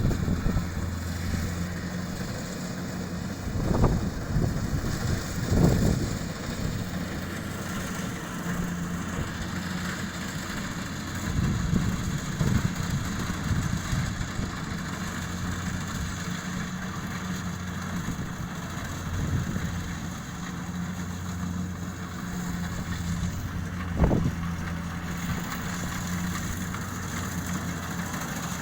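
Kubota DC-70 combine harvester's diesel engine running steadily, with a few brief louder knocks about four, six and twenty-four seconds in.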